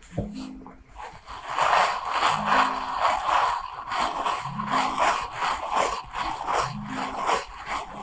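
Handheld scalp scrubber brush scratching and rubbing through hair in quick, repeated strokes to exfoliate the scalp, starting about a second in. A soft low tone pattern recurs about every two seconds underneath.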